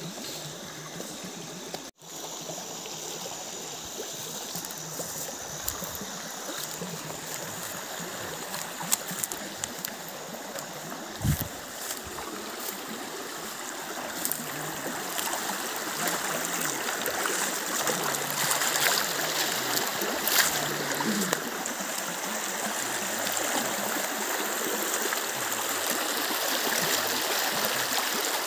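Steady rush of flowing river water, growing louder through the second half. A few scattered knocks and clicks, the strongest about eleven seconds in.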